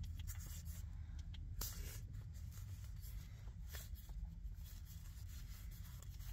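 Faint sliding and flicking of trading cards as they are moved one by one to the back of a small stack, over a low steady hum.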